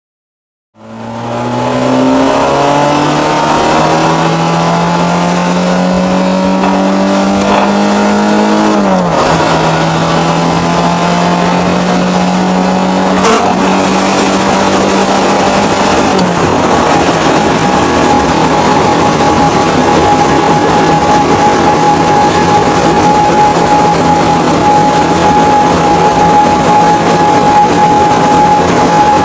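Ford Transit van's engine pulling hard under acceleration, its pitch climbing slowly and then dropping sharply about nine seconds in, as at a gear change. It then runs steady, and from about halfway through a steady high whine sits over loud road and wind noise: the weird noise the van is making.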